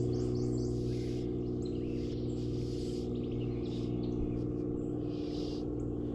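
Birds chirping in short calls over a steady low hum.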